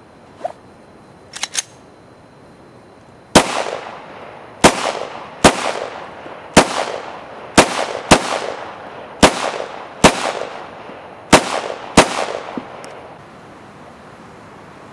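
Ten pistol shots fired one at a time at an uneven pace over about nine seconds, each with a short echoing tail. A few faint clicks come before the first shot.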